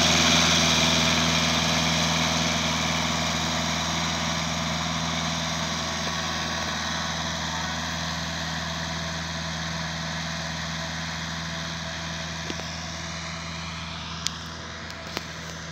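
VST Shakti MT 270 compact tractor's diesel engine running steadily as it pulls a ridger through the soil, slowly fading as the tractor moves away. Two sharp clicks near the end.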